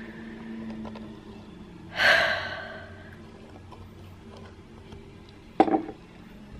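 A woman's breathy sigh about two seconds in, fading over about a second, over a faint steady hum. A short knock, likely from the handheld camera, comes near the end.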